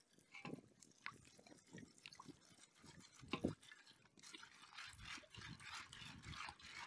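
Faint trickle of water poured from an earthenware jug into an empty aluminium pot, with a soft knock about halfway through; the splashing becomes fuller and steadier about four seconds in.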